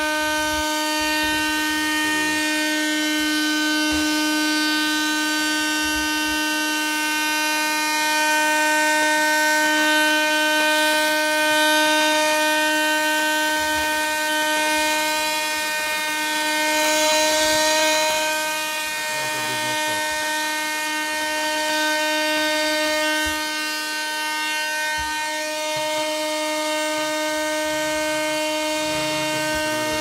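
Heyner Cyclonic Power PRO 12 V, 138 W car vacuum cleaner running off a computer ATX power supply, its motor giving a steady, high-pitched whine.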